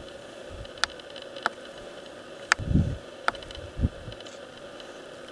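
Quiet mountaintop ambience with a faint steady hiss, a few sharp clicks and taps, and two brief low rumbles of wind buffeting the microphone.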